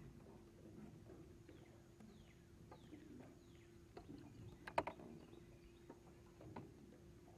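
Faint outdoor background on the water: a steady low hum, a few faint falling bird chirps, and scattered light knocks, with a sharp cluster of knocks a little before five seconds in.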